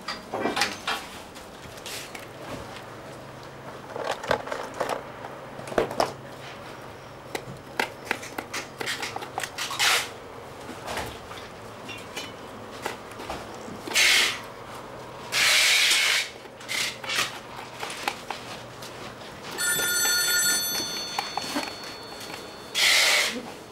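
Knife blade scraping and cutting dried shark fin on a wooden board: a run of small scrapes and taps with a few louder rasping scrapes. A steady high ringing tone sounds for about two seconds near the end.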